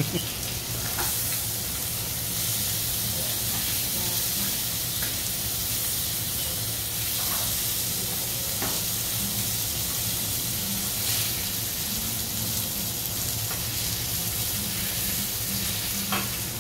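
Cubes of Kobe beef sizzling steadily on a hot steel teppanyaki griddle, with a few light clicks of the chef's metal spatula against the plate.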